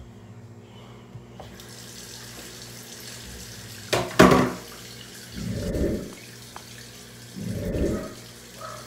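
A dog barking a few times, muffled. The loudest bark comes about four seconds in, then two more about two seconds apart, over a steady low hum.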